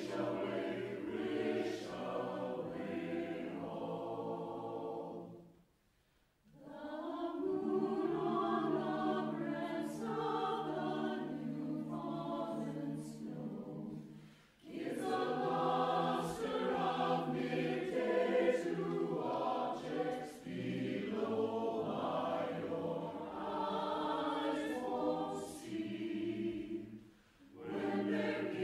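Mixed-voice a cappella choir singing chords, with three short breaks between phrases.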